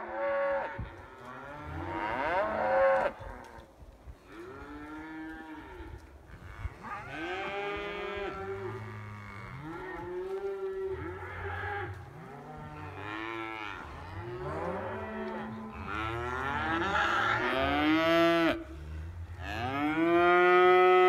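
Several cattle mooing over and over, calls overlapping at different pitches, some deep and some higher. The longest, loudest moos come near the start and in the last few seconds.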